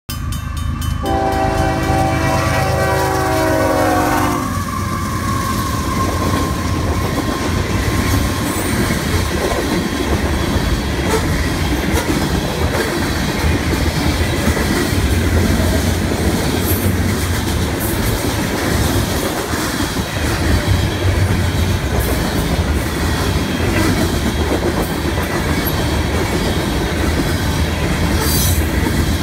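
Union Pacific grain train passing close by. The lead diesel locomotive sounds one long multi-note air-horn chord about a second in, lasting a few seconds, over the locomotives' rumble. Then a long string of covered hopper cars rolls past with steady wheel-on-rail clatter.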